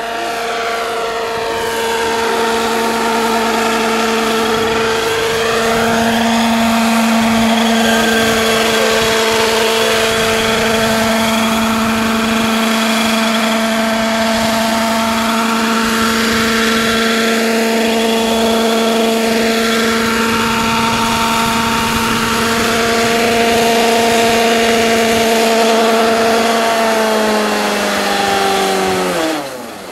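Radio-controlled scale Eurocopter EC-120B model helicopter flying, its engine and rotor giving a steady, loud pitched hum. Near the end, after it sets down, the pitch falls steeply and the sound drops away as the engine is throttled back.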